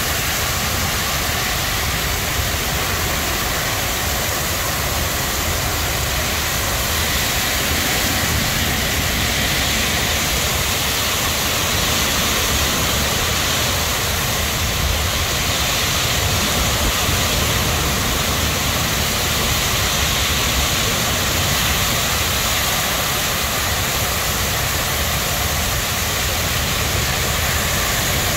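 Torrential rain pouring down in a severe thunderstorm with strong wind: a dense, steady rush of rain that swells slightly now and then.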